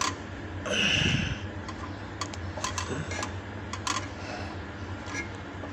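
Light scattered clicks and taps, with a brief rubbing noise about a second in, as the new rubber air hose is handled and fitted onto the washing machine's water level pressure switch.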